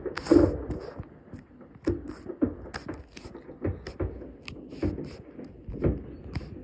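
Fireworks going off in quick, irregular succession: a loud bang just after the start, then many sharp pops and cracks, several a second.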